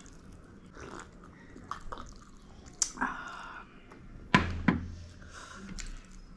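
Close-miked eating sounds of momos being chewed, with wet mouth smacks and a few sharp clicks. A louder double knock a little past four seconds in.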